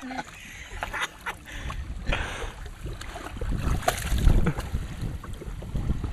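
Wind rumbling on the microphone, with light splashing as a dog moves its legs and muzzle in shallow water; the loudest splash comes about four seconds in.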